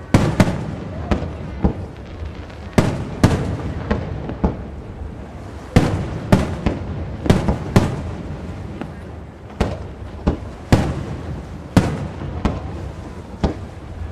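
Aerial firework shells bursting in quick succession during a fireworks display: sharp bangs every half second to a second, with a continuous low rumble between them.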